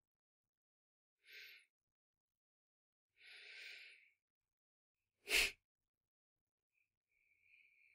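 A man breathing at a close microphone: two short breathy exhales, then a sharp puff of breath about five seconds in, the loudest sound, and a faint hiss near the end.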